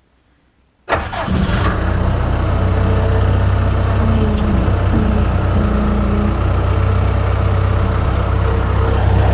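An engine starts abruptly about a second in, then runs steadily and loudly with a deep hum.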